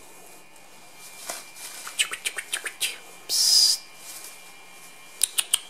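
Three-week-old Border Collie puppies squeaking and yipping as they play-fight in shredded newspaper, the paper rustling under them. A quick run of high squeaks comes about two seconds in, then a short loud hissing burst, and a few sharp crackles near the end.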